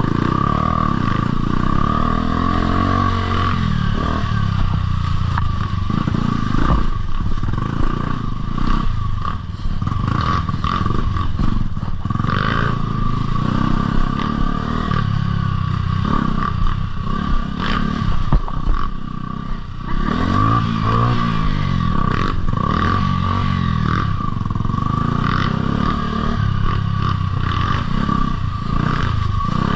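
Dirt bike engine revving up and dropping back again and again while riding, with clattering and scraping knocks throughout and a steady high whine underneath.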